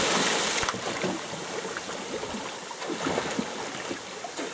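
The end of a big splash as two people plunge feet-first into the sea: spray hisses for about the first second, then the water churns and slaps with small splashes as they surface and start to swim.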